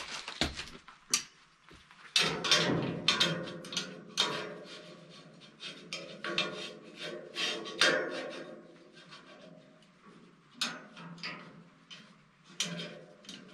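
Lever latch on a welded steel tailgate being worked by hand: a run of metal clanks and rattles from latch and gate against the steel box, dense through the middle, then a few single clicks near the end.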